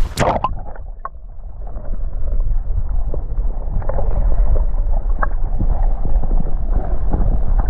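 A splash as the camera goes into the stream, then the muffled, low rushing of the current heard underwater through the camera housing, with small bubbling clicks; it grows louder about two seconds in.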